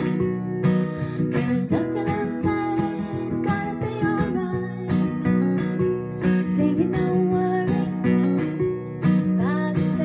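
Acoustic guitar strummed in a steady rhythmic chord pattern.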